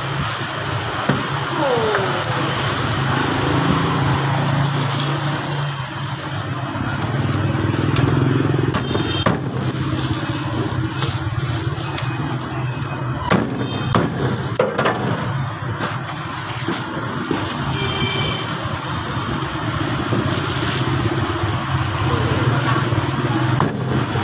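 Steady street traffic with running engines, and now and then a sharp knock of a cleaver chopping roast poultry on a thick wooden block.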